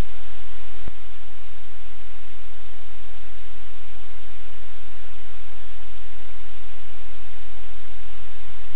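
Steady, loud hiss like static, with a low hum beneath it and a faint click about a second in.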